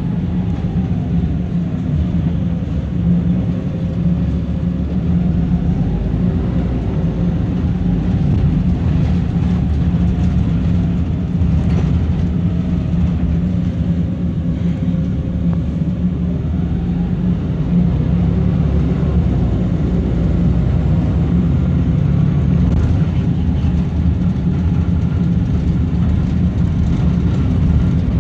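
Wright Eclipse bus on the move, heard from inside the passenger saloon: a steady low engine and road drone. Over it a faint whine falls and rises in pitch a few times.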